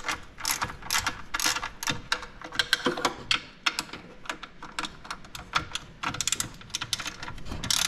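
Hand ratchet wrench clicking in quick, irregular runs as it backs out the 10 mm bolts holding the recoil starter on a snowmobile engine.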